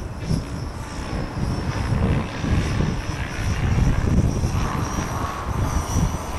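Align T-Rex 600 radio-controlled helicopter flying at a distance, with faint steady high tones over gusty wind rumble on the microphone.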